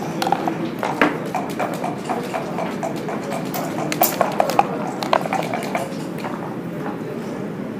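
Backgammon dice rattling in a dice cup, about four clicks a second, then thrown onto the board with a few sharp clicks about four to five seconds in.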